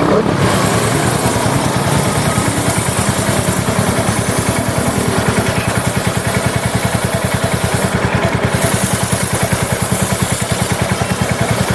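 Royal Enfield Hunter 350's single-cylinder engine running steadily in first gear with the rear wheel spinning free, its exhaust beating in an even, rapid pulse. A hiss of aerosol chain cleaner sprayed onto the moving chain sits over it.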